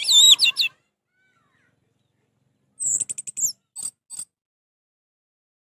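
Orange-headed thrush singing: a short warbling phrase of high notes at the start, then after a pause of about two seconds a rapid run of high notes followed by two short single notes.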